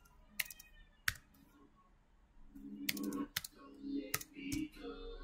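A few scattered computer keyboard keystrokes, single sharp clicks spaced about half a second to a second apart, with a faint low background murmur coming in about halfway through.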